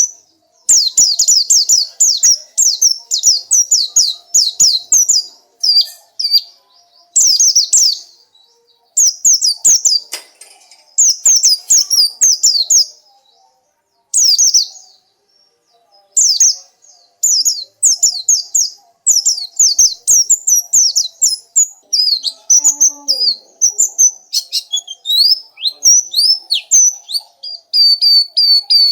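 White-eye (pleci) singing: quick runs of high, sharp down-slurred notes in bursts with short pauses between them, quickening into a rapid trill near the end.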